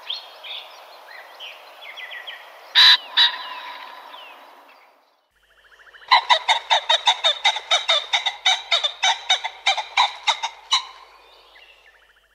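Common pheasant (Phasianus colchicus) calling: two loud, sharp notes about three seconds in, then, after a short pause, a rapid run of harsh clucking notes, about five a second, for nearly five seconds.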